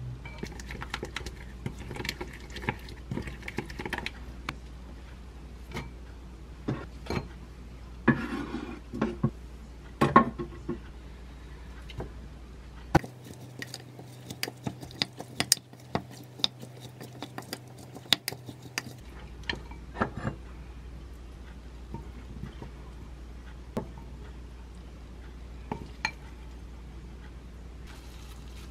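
Wooden spoon stirring and tossing a spicy sauce and vegetables in a glass mixing bowl, with irregular clinks and knocks of the spoon against the glass over a low steady hum.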